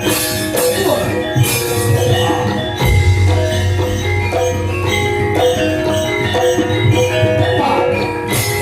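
Javanese gamelan playing for a wayang kulit show: bronze metallophones ringing out a steady melody over drum strokes, with a deep low stroke about three seconds in that keeps sounding.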